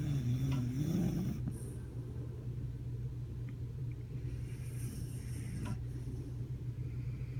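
Dog snoring in its sleep: a wavering, pitched snore in the first second and a half, over a steady low rumble.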